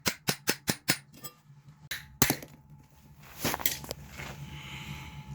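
A quick, even series of sharp taps, about four or five a second, that stops about a second in, followed by a few separate knocks, the loudest just over two seconds in, and a short rustling scrape.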